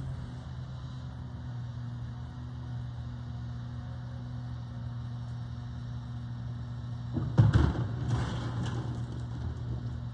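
Garbage truck's diesel engine idling with a steady low hum. About seven seconds in comes a short burst of thuds and clatter as trash is thrown into the rear-loader's hopper.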